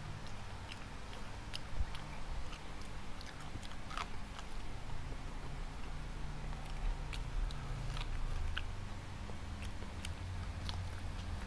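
Close-miked chewing and biting of a person eating: soft mouth clicks and small crisp bites scattered throughout, with a sharper one about four seconds in.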